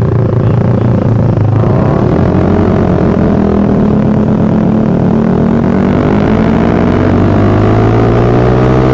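Suzuki Satria FU's single-cylinder four-stroke engine running under way. Its pitch climbs steadily through the second half as the bike accelerates.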